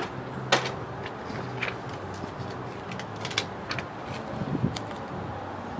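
A low, steady background hum with scattered sharp clicks and taps, the loudest click about half a second in.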